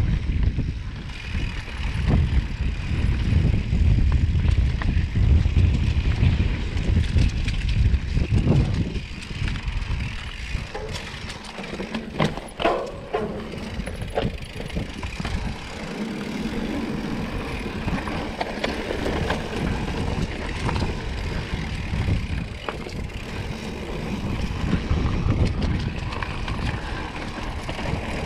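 Mountain bike riding down a dirt singletrack: wind rushing over the microphone with the tyres on dirt and scattered clicks and rattles from the bike over bumps. The rumble is loudest in the first third and eases after about ten seconds.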